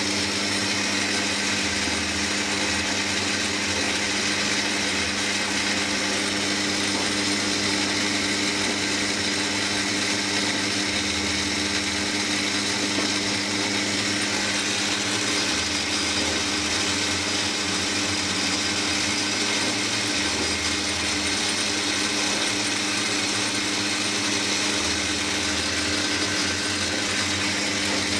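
Metal lathe running steadily, its tool cutting a 304 stainless steel shaft. The machine hums evenly and the cutting noise stays constant throughout.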